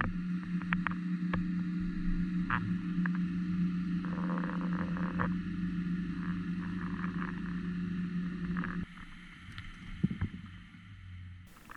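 Muffled underwater sound picked up by a camera in its waterproof housing: a steady low hum with scattered sharp clicks and taps. The hum drops away suddenly about nine seconds in, leaving a quieter background with a few clicks.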